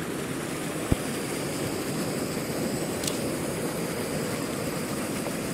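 Primus remote-canister gas camping stove burning steadily under a pot of water, a low even rushing roar as the water heats towards the boil. A single soft thump about a second in.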